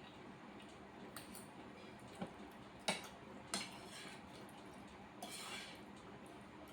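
Cutlery clinking against a plate a few scattered times while eating macaroni, with a brief scraping sound about five seconds in.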